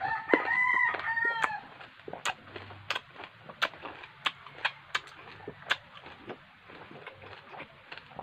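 A rooster crows once, about a second and a half long, then a run of wet clicking chewing sounds as a mouthful of whole green lemons is chewed.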